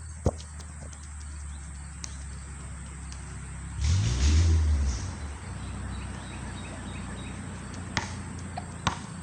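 Outdoor background noise: a steady low hum, a louder rumble about four seconds in, faint bird chirps, and a few sharp knocks.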